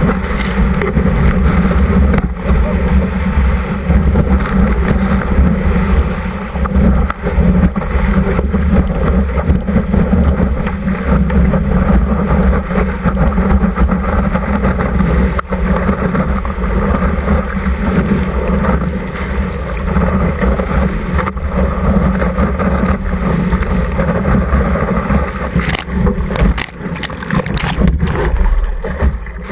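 Whitewater rushing past a surfboard-mounted action camera, with wind on the microphone, loud and steady as the board rides a breaking wave. Near the end come several sharp splashes as spray hits the lens.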